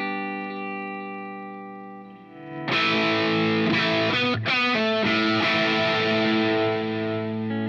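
Electric guitar played through a GTC REVPAD multi-effects unit on a clean-to-distortion preset. A clean chord rings and fades. About two and a half seconds in, the sound jumps to a loud, distorted chord, which is cut off briefly once, rings on, and eases off near the end.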